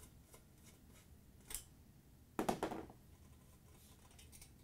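Faint metal clicks and a short scrape about halfway through, from a nut driver backing out the screws that hold a high limit thermostat to a dryer's sheet-metal heater housing.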